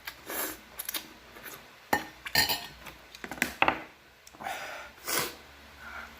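Eating at a bowl of spicy noodles: utensils clicking against the bowl several times, with a few short noisy bursts of slurping between the clicks.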